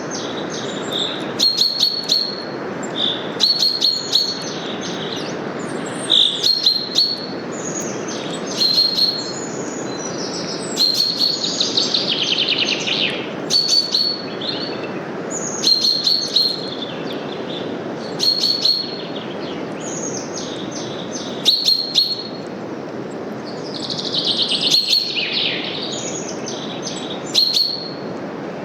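Birds chirping in short high calls, roughly one every two seconds, over a steady rush of wind through forest leaves. Longer trilling phrases come about twelve seconds in and again near twenty-five seconds.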